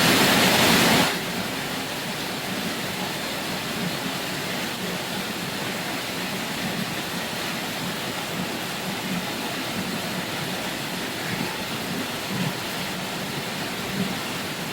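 Steady rain falling, an even hiss with no rhythm, louder for about the first second before settling to a constant level.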